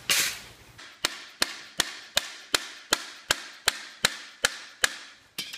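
Rubber mallet hammering a small wooden block held against a bent aluminium Sherman trap door, pounding its creases flat: about a dozen evenly spaced knocks, roughly two and a half a second, starting about a second in. A short clatter at the very start.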